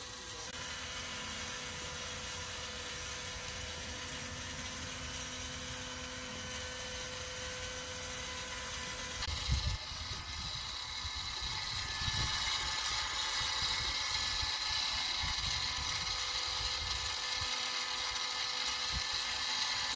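Electric spit-roaster motor running steadily as it turns a whole lamb on the rod: a constant motor hum and whine. The sound gets brighter about halfway through and a little louder soon after, with irregular low rumbles underneath.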